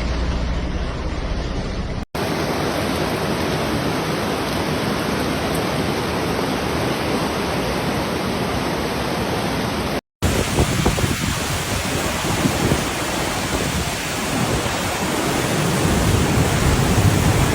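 Floodwater rushing in a steady, loud, even noise, across three clips cut together with brief breaks about two seconds in and again about ten seconds in.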